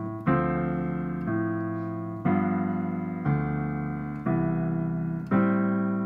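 Digital piano playing jazz chords: the left hand alternates root and fifth in half notes under right-hand third-and-seventh voicings, with a new attack about once a second and each chord decaying until the next.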